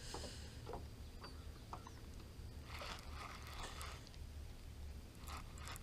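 Faint clicks and brief rustling from a baitcasting reel and rod being handled, over a low steady hum.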